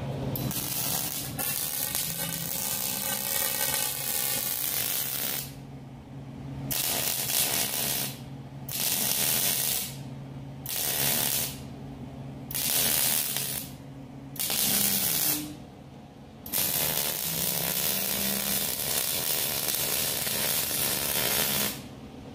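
Wire-feed welder arc crackling and frying on steel square tubing, starting and stopping in a string of short welds with brief quiet gaps, then one longer bead near the end. A steady low hum carries on under the gaps.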